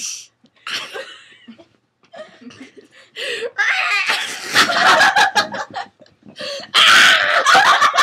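A girl laughing hard in repeated bursts. A few short, quieter sounds come in the first two seconds, then loud, almost unbroken laughter from about three and a half seconds in.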